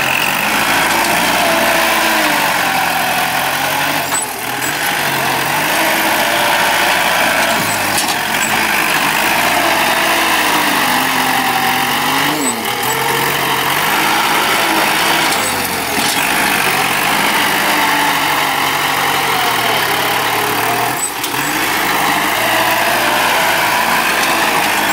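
Kubota L4708 tractor's four-cylinder diesel engine working under load while its front blade dozes soil, the engine note rising and falling again and again. A few brief knocks come every few seconds.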